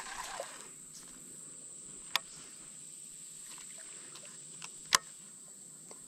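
Insects buzzing in a steady high drone, with a few sharp clicks from handling the rod and baitcasting reel: one about two seconds in and a louder one near five seconds.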